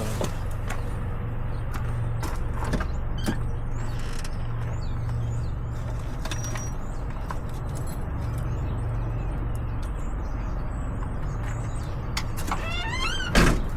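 Steady low rumble of road traffic, with scattered light clicks and knocks and one sharp knock near the end.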